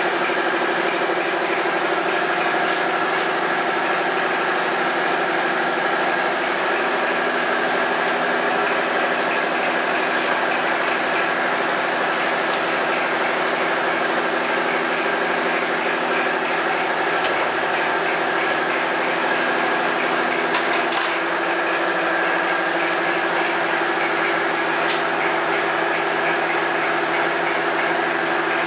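Magnetic particle inspection machine running with a steady mechanical hum made of several held tones, and a few faint ticks.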